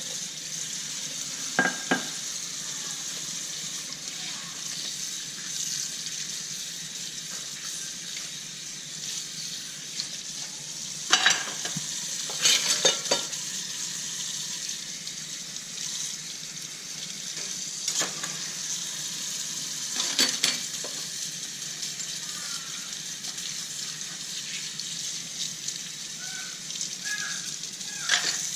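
Water running steadily from a tap into a kitchen sink as dishes are washed, with short clinks and knocks of dishes now and then, a cluster of them about 11 to 13 seconds in.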